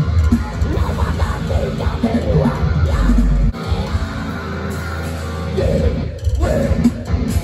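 Deathcore band playing live, heard from within the crowd: heavy guitars and drums with yelled vocals. The sound changes abruptly about halfway through and again near the end, where the clips are cut together.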